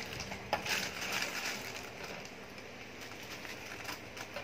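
Plastic courier mailer pouch crinkling and rustling as it is handled, with a few sharper crackles in the first second or so.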